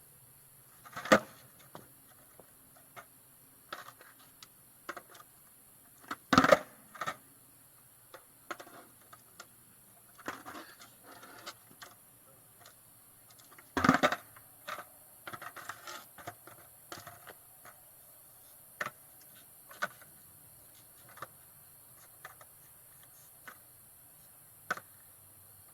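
Skateboard clacks: sharp knocks of the board hitting the ground. The loudest come about a second in, around six seconds in as a quick double knock, and around fourteen seconds in, with many lighter clicks between.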